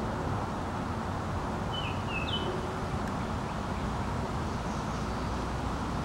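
Steady droning chorus of 17-year periodical cicadas (Magicicada) with a low rumble beneath it, and two short high chirps about two seconds in.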